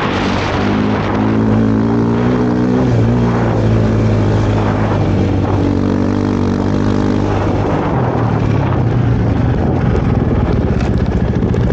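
KTM 450 SX-F single-cylinder four-stroke engine on a snowbike, running at steady revs while riding. Near the end it drops to a lower, pulsing beat.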